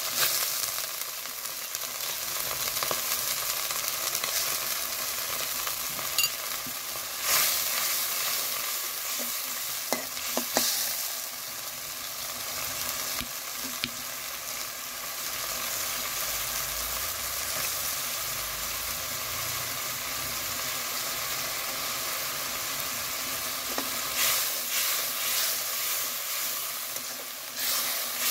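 Sliced onions and whole spices sizzling steadily in hot oil in a metal karai, stirred with a metal spatula that scrapes against the pan a few times.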